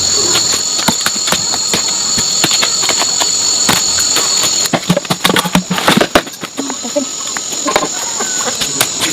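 Insects droning in a steady high buzz that cuts off suddenly about halfway through, over scattered clicks and knocks. A louder cluster of knocks and rustling comes just after the buzz stops.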